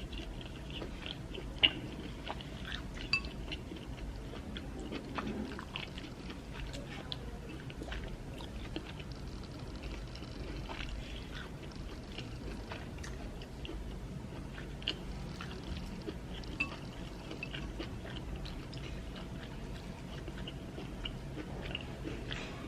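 A person chewing and eating amala with ewedu soup and fish close to the microphone: soft, wet mouth noises and many small clicks, with a couple of sharper clicks in the first few seconds.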